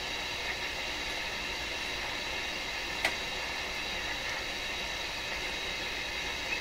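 Steady hiss of AM radio static, with one sharp click about three seconds in. The click is the kind of crackle that the leaky paper capacitor on the tester is suspected of making in the radio as it breaks down and arcs.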